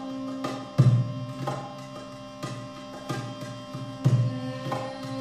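Meditative percussion music: a hand drum beating an unhurried rhythm over a steady sustained drone. The deepest, loudest drum strokes fall about a second in and again about four seconds in, with lighter taps between.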